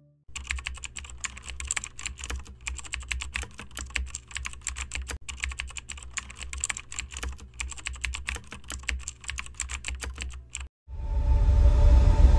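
Rapid, continuous keyboard typing clicks over a low hum, a typing sound effect. Near the end it stops briefly and a louder, low rumbling noise takes over.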